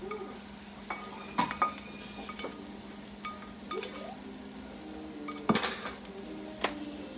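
A cooking utensil scraping and clinking against nonstick skillets as cooked sausage crumbles are moved from one pan into the pan of scrambled eggs. There are a few sharp knocks, the loudest about five and a half seconds in, over a steady low hum.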